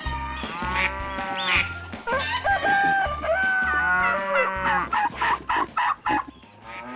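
Chickens clucking and a rooster crowing in pitched, bending calls, followed by a run of short clucks near the end, over background music with a steady beat.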